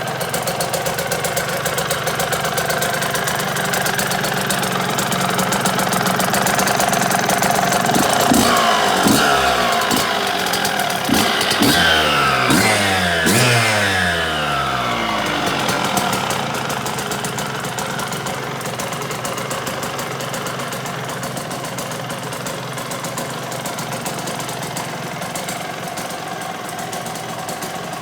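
1998 Suzuki RM125's single-cylinder two-stroke engine idling. It is revved several times about a third of the way in, the pitch rising and falling with each blip, then settles back to a steady idle.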